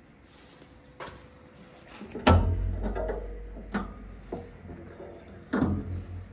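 Sheet-metal boiler top cover being shifted and its corner bolt worked by hand as it is lined up: a few sharp metallic knocks and clanks. The loudest comes about two seconds in and another strong one near the end, each followed by a dull low rumble.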